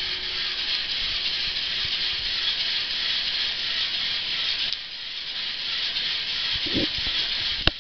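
Steady hissing rush of water churning and sloshing as waves run along a small wave pool tank, with a couple of sharp clicks near the end.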